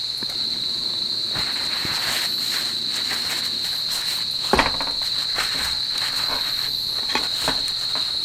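A steady, high chorus of chirring insects, with the rustle and pat of paper towels pressed onto raw lamb to blot the blood, and a light knock on the table about four and a half seconds in.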